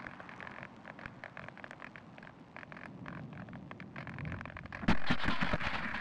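Audio from the plane's onboard video link as the small Teksumo FPV flying wing glides in with its motor off, a faint crackle and clicking. About five seconds in it touches down and skids on its belly across the ground, a sudden loud rush of scraping and thumps that lasts a second or so.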